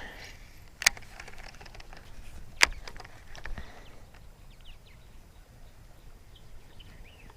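Two sharp clicks in the first three seconds, then faint short bird chirps over quiet outdoor background.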